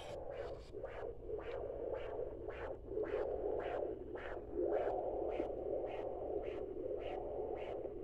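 Handheld fetal Doppler monitor picking up a baby's heartbeat through its speaker: a steady whooshing hiss with quick, even pulses of about two to three beats a second, the fast rate of a fetal heart.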